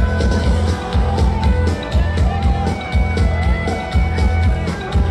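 Loud music with a heavy bass and a steady, driving drum beat.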